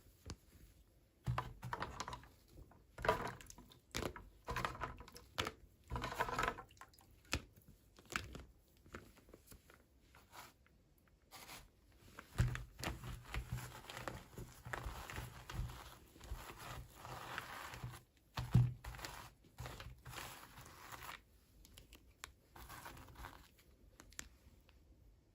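Toy packaging being handled and torn open: irregular bursts of crinkling and crackling with sharp clicks, and a few low thumps of handling.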